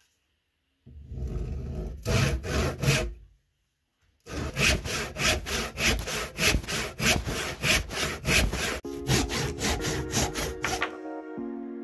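Handsaw cutting through a small wooden block: a few strokes, a short pause, then quick, even back-and-forth strokes. Soft music fades in under the last couple of seconds of sawing.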